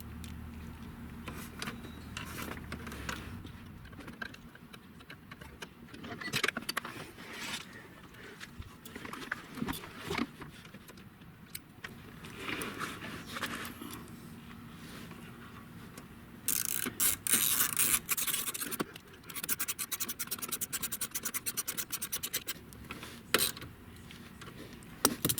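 Hand socket ratchet clicking rapidly as bolts are run in, among scattered scrapes and knocks of tools and trim. The longest run of fast, even clicks comes in the last third, just after a short loud, dense stretch.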